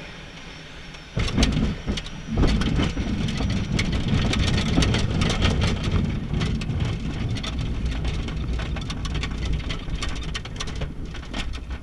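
A glider touches down about a second in and rolls along the ground. Its landing wheel rumbles and the airframe rattles and knocks, with a second jolt a moment later. The rumble then slowly eases as it slows down.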